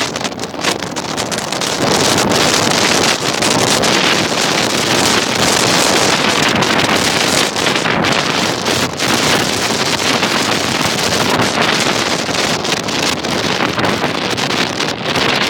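Wind buffeting the microphone of a camera held out above a moving car: a loud, even rush that builds over the first two seconds and then holds steady.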